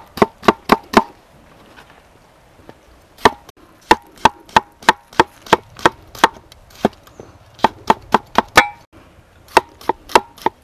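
Cleaver-style knife slicing tomatoes on a wooden cutting board, each cut ending in a sharp knock on the board. The knocks come in quick runs of about three a second, with a pause of about two seconds after the first second.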